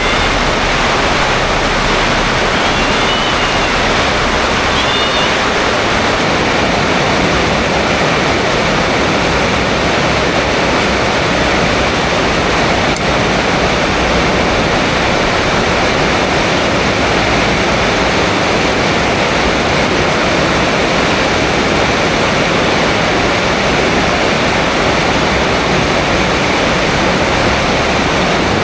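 Heavy rain pouring down in a steady, loud downpour hiss, with two faint, brief high calls a few seconds in.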